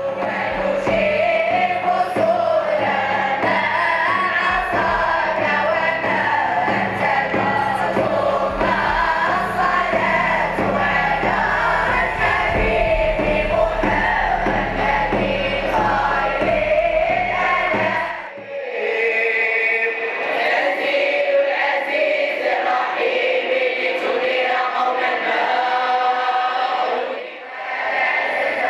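Sufi devotional music: a group of voices singing a chant together over regular hand-drum strokes and bass. About two-thirds through, the drums and bass drop out abruptly and the voices sing on alone.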